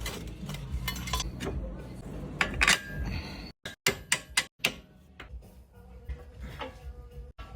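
Metal clinks and clicks of tools and parts being handled, a few sharp strikes loudest about two and a half seconds in, with a steady low hum under them and several very brief gaps of total silence in the middle.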